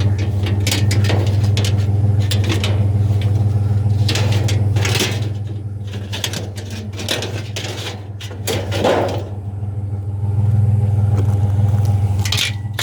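A vehicle engine idling steadily under a series of sharp metal clanks and bangs as scrap metal table frames are bent and broken into smaller pieces. The idle fades back in the middle and returns near the end.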